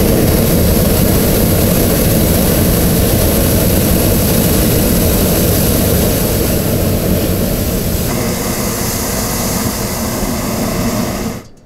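Hot air balloon's propane burner firing in one long, loud, steady blast that cuts off suddenly near the end.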